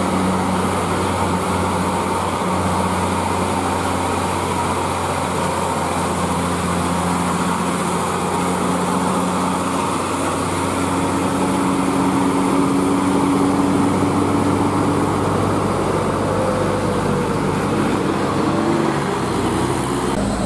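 Diesel engine of a fully loaded Hino 500 dump truck labouring slowly up a steep grade: a steady, loud drone whose note shifts and wavers in the last few seconds.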